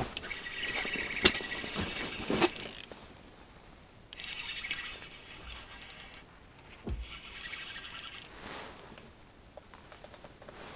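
Small clicks and rattles of ice-fishing gear being handled, busiest in the first three seconds, with a dull thump about seven seconds in.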